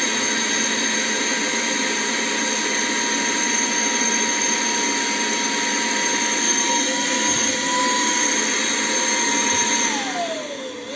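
ILife H70 handheld vacuum cleaner's motor running with a steady whine and rush of air. Near the end its pitch falls and it quietens as the motor winds down, then it starts spinning back up.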